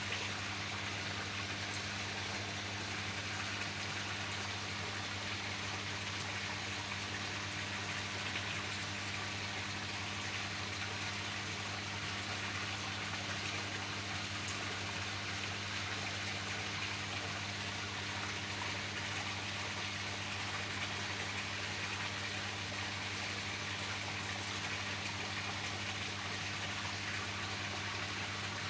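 Steady rush and splash of moving water in a koi tank, over a constant low hum from the tank's pump or aeration equipment.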